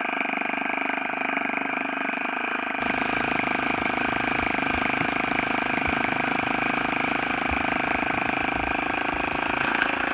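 O.S. FS-40 four-stroke glow engine on a model airplane running steadily at a constant speed, its propeller spinning.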